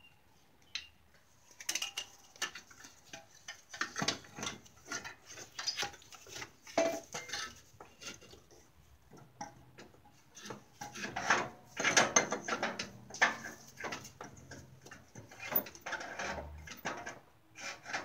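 Metal clinking, knocking and scraping as an exhaust manifold with its catalytic converter is handled and worked onto the cylinder head studs: many irregular knocks, busiest about two-thirds of the way through.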